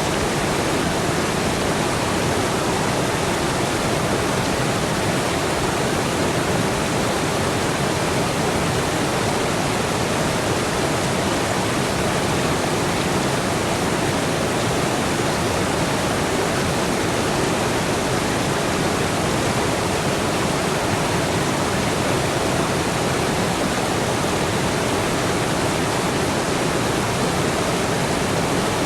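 Steady rush of flowing water, like a stream or waterfall: one even, unbroken hiss with no separate splashes or other events.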